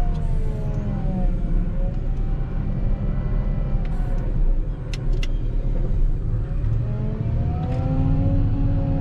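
Volvo L60H wheel loader running under load while plowing snow: a steady heavy rumble with a whine that drops in pitch early on and climbs again near the end as the engine revs fall and rise. Two short sharp clicks about five seconds in.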